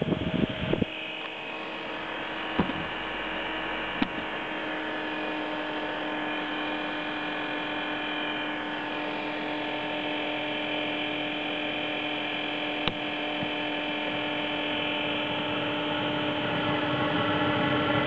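Chinese diesel air heater's blower motor running with a steady electric hum, growing slightly louder near the end. There is a short burst of noise at the start and three sharp clicks.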